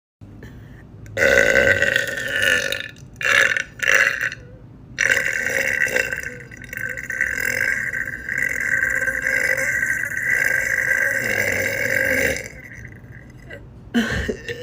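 A woman burping: one loud belch about a second in, two short ones, then one long drawn-out belch lasting about seven seconds.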